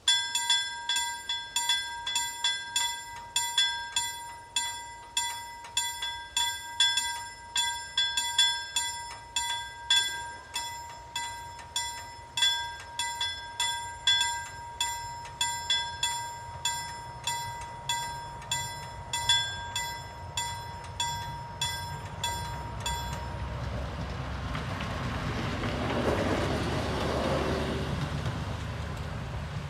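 LME KLD-4315 mechanical level-crossing bell ringing, about two strokes a second, as the crossing activates. It stops about three-quarters of the way through. Then the NKlJ Y01p 52 railcar passes over the crossing, its sound swelling as it nears.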